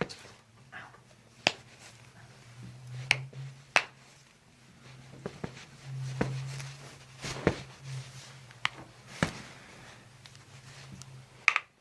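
Toe and ankle joints cracking under a chiropractor's manipulation: several short, sharp pops at irregular intervals of a second or more.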